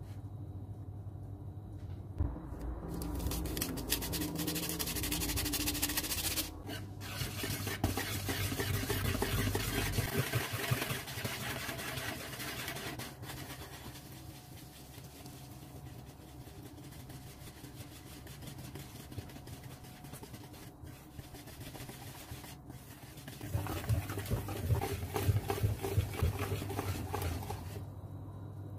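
Cake batter being mixed in a plastic bowl: a long loud stretch of beating for the first ten seconds or so, quieter stirring after, and near the end a wire whisk beating chocolate cake batter in quick strokes.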